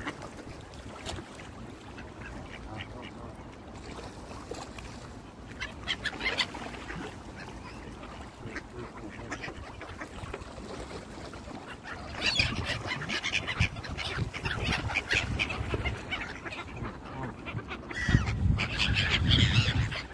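Canada geese and ducks calling close by, honking and quacking in bursts that grow busier in the second half. A low rumble comes in with the calls near the end.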